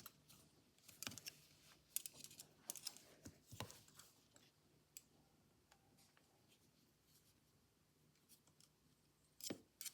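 Faint, scattered clicks and scrapes of a small screwdriver working the screws out of a Columbia phonograph governor, with the screws and washers clicking against the metal parts.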